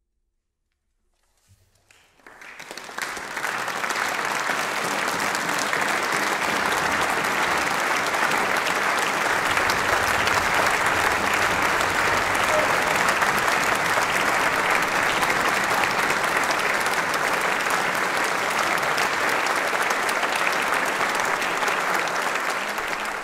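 Large audience applauding, starting about two seconds in, swelling quickly to a steady, full clapping.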